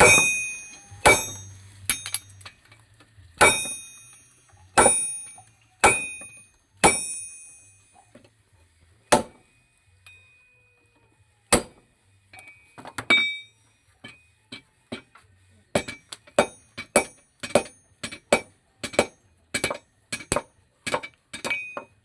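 Hammer blows on steel at the anvil, each strike ringing out with a high metallic tone. The blows come slowly and unevenly at first, then from about two thirds of the way in settle into a quicker, steady run of about two strikes a second.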